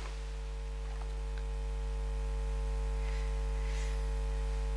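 Steady low electrical mains hum with a few faint steady tones above it, and a faint brief rustle about three seconds in.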